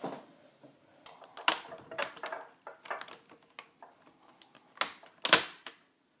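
Plastic screen bezel of an HP Pavilion dv6 laptop being pried off by hand: a series of sharp plastic clicks and snaps as its clips let go, the loudest near the end.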